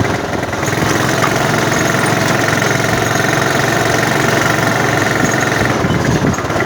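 Honda Supra motorcycle engine, a small four-stroke single-cylinder, fitted in a car and running steadily with an even, fast beat.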